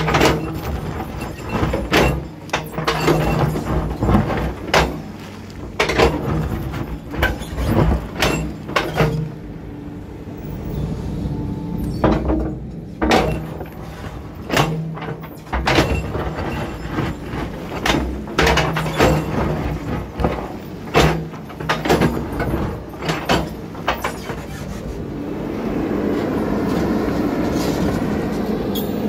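Caterpillar D7 bulldozer at work: diesel engine running under load with many irregular clanks and knocks from steel tracks and the blade on rock. The sound evens out into a steadier whine near the end.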